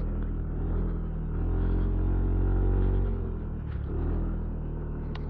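Yamaha NMAX scooter engine pulling up a steep incline under load, with low road and wind rumble. The engine note swells about a second and a half in and eases off around three seconds.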